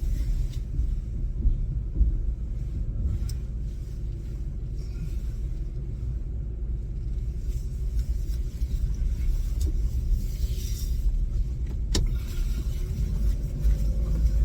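Steady low rumble of a car's engine and road noise heard from inside the cabin, with one sharp click near the end.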